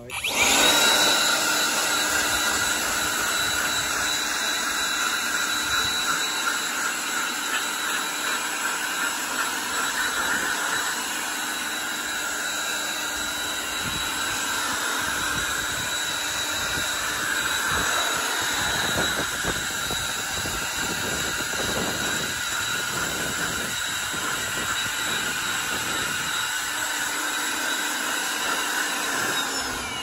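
A motor-driven blower running steadily at full power: a loud, even rush of air with a faint whine. It is blowing dust out of a tractor's paper air filter element.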